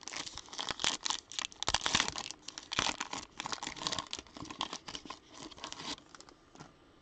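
A 2021-22 Donruss basketball foil card pack being torn open, its wrapper crinkling and crackling as the cards are pulled out. It is loudest about two seconds in and stops about six seconds in.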